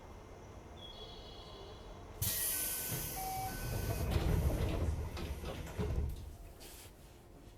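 Sudden loud hiss of compressed air from a 205-series electric commuter train about two seconds in, followed by a few seconds of low rumbling with short tones that fade away near the end.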